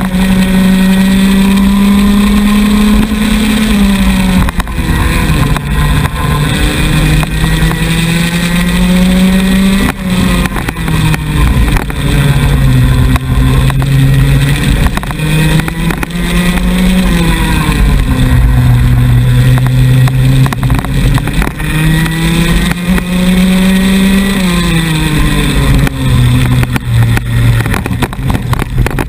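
Onboard sound of a Yamaha KT100 two-stroke kart engine at race pace. Its pitch climbs steadily along each straight and drops sharply when it comes off the throttle for a corner, several times over.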